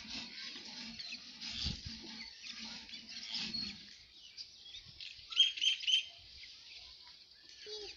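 Cattle munching fodder at a trough, with repeated crunching bites. About five and a half seconds in, a bird gives three short, sharp chirps, the loudest sounds here.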